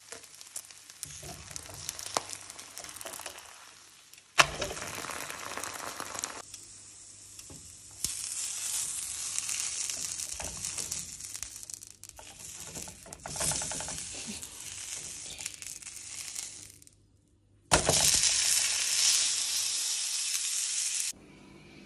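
Food sizzling in hot oil in a non-stick frying pan, heard in several short stretches that start and stop abruptly, loudest near the end. One sharp click comes about four seconds in.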